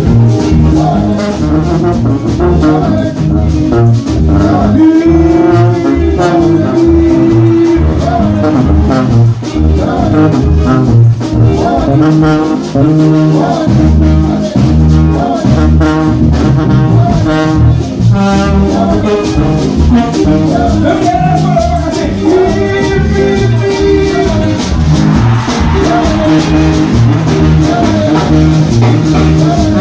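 Live kaseko band music: brass lines, with a sousaphone among the horns, over drum kit, bass guitar and hand drums, playing at a steady up-tempo beat with a few long held notes.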